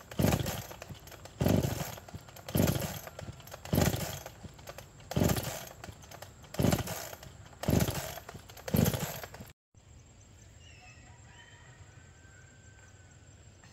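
Two-stroke chainsaw being pull-started: eight hard pulls of the recoil starter about a second apart, each a short burst of cranking that dies away without the engine catching. After a sudden cut, only faint outdoor background with a few chirps.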